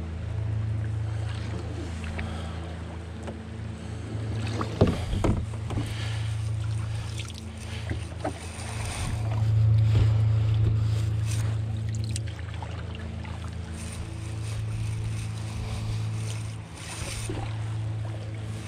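Canoe running down a fast, high-water river: water rushing along the hull and wind on the microphone make a steady low rumble. Scattered knocks and splashes come through it, the loudest about five seconds in.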